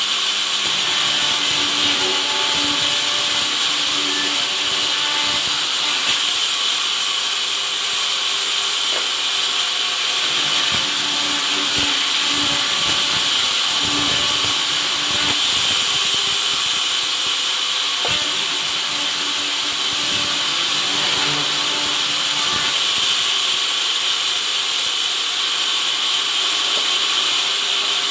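Vertical band sawmill running steadily on its first test: a continuous machine hiss with a faint hum that comes and goes and a few scattered clicks.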